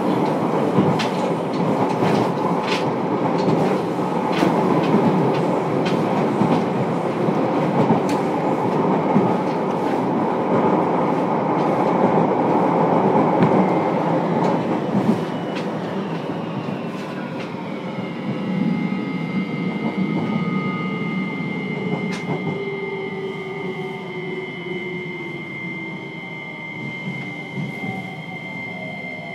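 JR Kyushu 303 series electric train heard from inside a motor car: loud running noise with rail-joint clicks for about the first half. The noise then drops, and the traction motor and inverter whine falls steadily in pitch under a steady high tone as the train slows.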